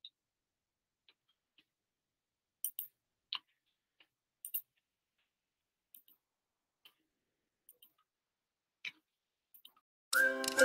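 A few faint, scattered clicks over near silence. Music starts just before the end.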